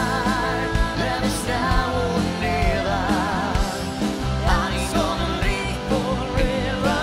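Live rock band playing, with a vocal line sung with a strong vibrato over drums, electric guitar and keyboards.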